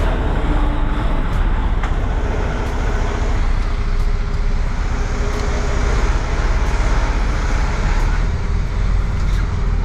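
Semi truck's diesel engine running, heard from inside the cab as the truck rolls out across the yard: a steady low rumble.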